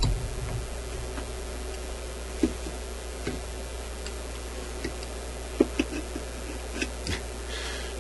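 Sparse small clicks and taps of metal tools working at a loudspeaker's voice coil lead during a solder repair, over a steady low hum.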